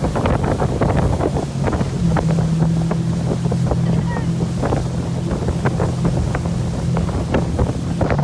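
Motorboat running under way with a steady low engine hum, wind buffeting the microphone, and many short thumps throughout.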